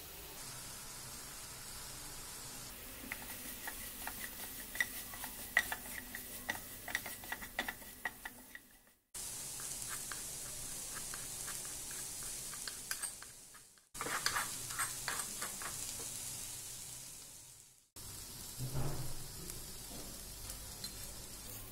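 A spoon stirring and scraping in a hot pan with a light sizzle, the scrapes coming as quick sharp ticks. Part of it is dry gram flour (besan) being stirred as it roasts in a small pan. The sound comes in a few short stretches, each fading out, with a soft thump near the end.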